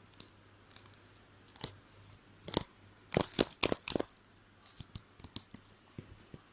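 A school supply handled close to the microphone for ASMR: a series of sharp, crisp clicks and scrapes, with a dense loud cluster about halfway through.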